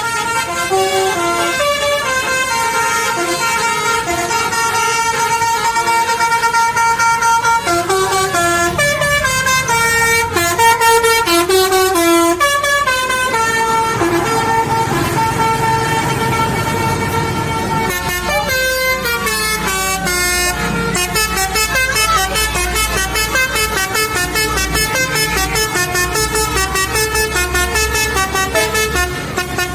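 Basuri musical horn (the Indonesian 'telolet' vehicle horn) playing tunes: held notes that step from pitch to pitch, then, about two-thirds through, a faster run of short, rapidly repeated notes. A low rumble sits underneath from the middle on.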